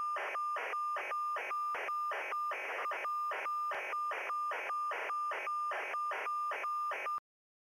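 Demodulated signal from an RTL-SDR receiver running SDRSharp: a tone of about 1.2 kHz pulses on and off in a steady rhythm, about two and a half beeps a second, each with a rough noisy edge. It cuts off suddenly near the end.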